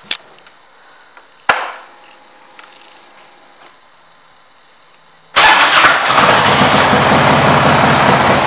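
A 2006 Harley-Davidson Road King's V-twin engine starts suddenly a little over five seconds in and runs loudly at idle with an even low pulse through its aftermarket exhaust. About a second and a half in there is a single sharp click.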